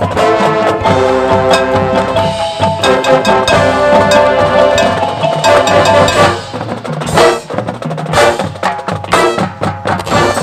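Marching band playing: sustained chords over drums, with mallet percussion, wood block and tubular bells. About six seconds in, the full sound drops away, leaving separate sharp percussion hits and ringing bell tones.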